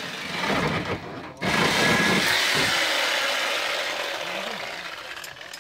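Reciprocating saw cutting through a steel exhaust pipe under a car, with a short break about a second and a half in before the cut resumes and then trails off near the end.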